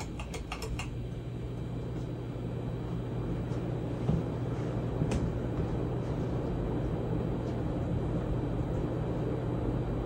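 A Hunter 1930's Original ceiling fan with an oil-bath PSC motor runs with a steady motor hum and a rush of air from its blades, growing gradually louder. A few light clicks come in the first second, and single clicks about four and five seconds in.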